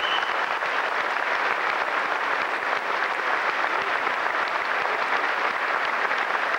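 Large audience applauding: a steady, dense clatter of many hands clapping.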